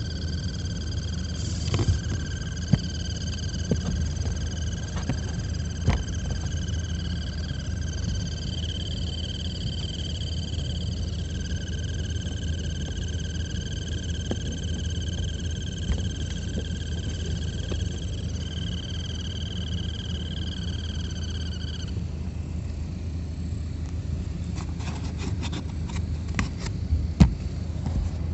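High-pitched whirring chirp from the cabin blower motor of a 2016 Alfa Romeo Giulia, a tone with overtones that breaks and resumes several times over a steady low fan rush, then cuts off suddenly about two-thirds through. A few sharp clicks, bunched near the end. The noise is the one that comes when the car is cold after sitting, which the owner suspects is worn or dry motor bearings or debris in the blower chamber.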